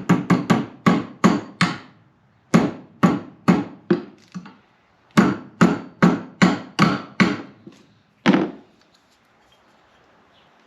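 Body hammer striking metal, tapping new hinge hardware into a truck door hinge: quick blows, several a second, in three runs with short pauses, then a single last blow a little past eight seconds in.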